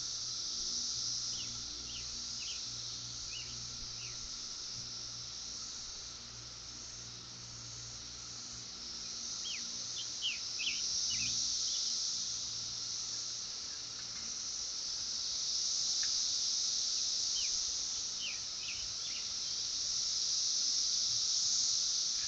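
A steady chorus of insects buzzing high-pitched, swelling and fading every few seconds. Three times a bird breaks in with a quick run of short falling chirps.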